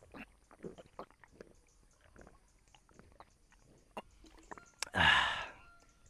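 A person drinking water in gulps, a string of small swallowing clicks, then about five seconds in a loud, short breath out after the swig.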